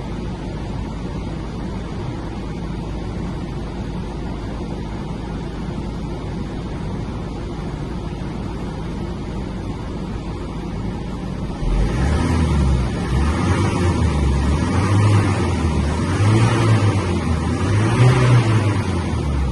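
Iveco Daily 50c15's 3.0-litre diesel engine running steadily at idle, then, about twelve seconds in, revved several times, its pitch rising and falling with each rev.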